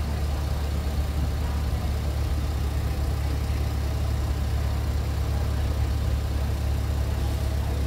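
Engine of a tourist road train running steadily at low speed, a constant low drone heard from on board.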